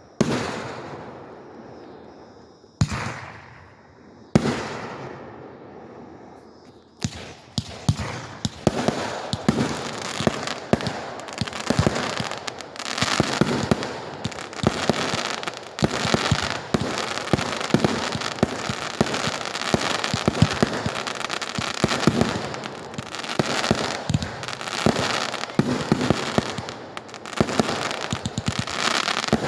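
Fireworks display: a few separate booms with fading crackle in the first seconds, then from about seven seconds in a dense, continuous barrage of rapid bangs and crackling.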